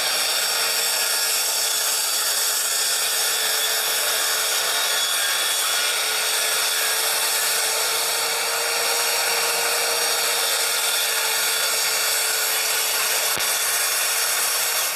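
Kobalt circular saw running and ripping through pallet-wood boards glued on plywood, guided along a track, with a steady motor whine under the cutting noise. It stops abruptly right at the end.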